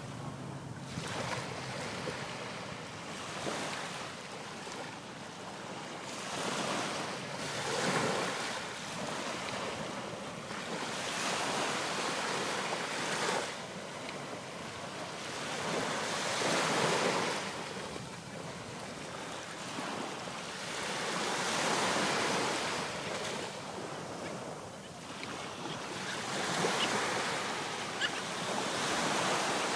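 Small surf breaking and washing up a sandy beach, a steady hiss of water that swells every three to five seconds as each wave comes in.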